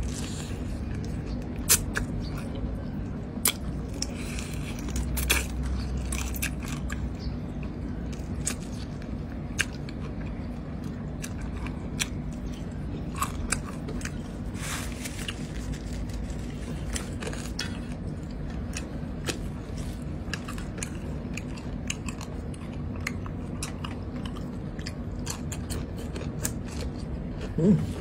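Close-miked eating sounds: a person chewing rice and curry with wet mouth clicks and smacks, the fingers working the rice on a steel plate. A steady low hum lies underneath, and a short louder sound comes near the end.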